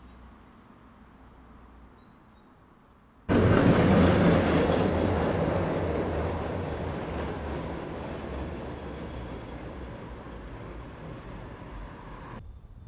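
Tram passing and pulling away along its tracks, its rumble starting suddenly about three seconds in and fading steadily as it recedes.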